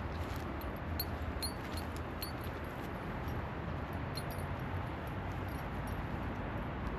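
Steady outdoor background noise with a low rumble. A few faint, light clicks come about one to two and a half seconds in.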